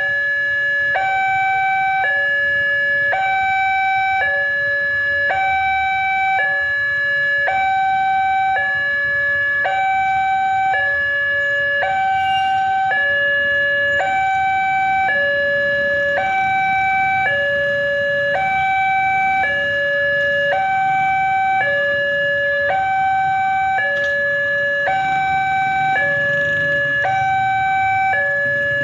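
Railway level-crossing warning alarm sounding: an electronic two-tone signal switching steadily between a higher and a lower note about every 0.7 seconds, warning that a train is approaching. A low rumble grows under it near the end.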